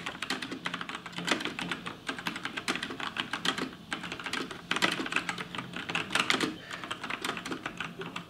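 Typing on a Gamepower Warlock mechanical keyboard with Outemu red switches: quick, irregular runs of key clicks, with short pauses about four seconds in and again around six and a half seconds.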